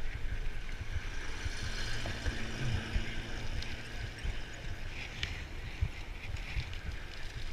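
Wind buffeting an action camera's microphone in uneven low gusts over a steady hiss.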